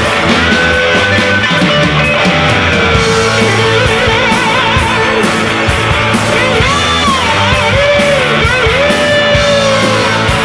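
Rock instrumental: a lead guitar solo with bent and wavering notes over a full rock band backing.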